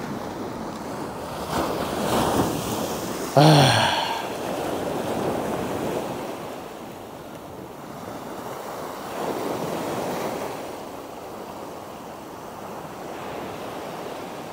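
Small surf washing up and back on a sandy beach, swelling twice as waves run in, with wind on the microphone. About three and a half seconds in, a short voice-like sound falling in pitch cuts in briefly.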